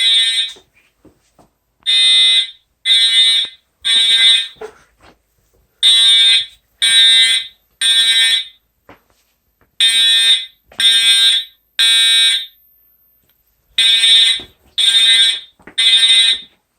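Edwards Integrity fire alarm horn strobe sounding the temporal-3 evacuation pattern: three loud half-second horn blasts about a second apart, then a pause of about a second and a half, repeating.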